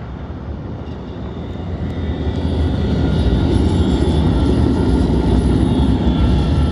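Alstom Citadis tram passing close by: the rumble of its running gear on the rails grows louder from about two seconds in, with a steady high-pitched whine from its electric drive over it.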